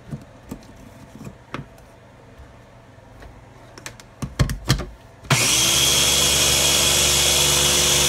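A small food processor being put together, its plastic lid and motor top clicking and knocking onto the bowl; then, about five seconds in, the motor starts and runs steadily with a high whine, blending a thin egg batter.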